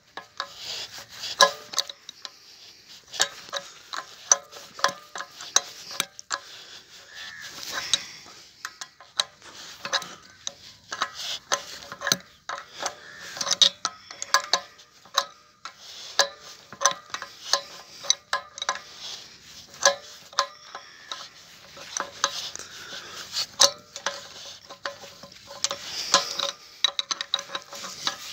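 Ratchet wrench clicking in short quick runs, with metal clinks, as the packing-gland nuts on a water pump's shaft are tightened to stop it leaking water.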